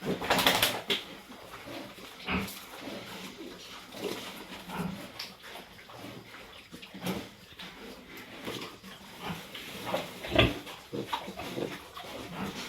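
Pigs with newborn piglets making short, scattered calls. The calls are loudest just after the start and again about ten seconds in.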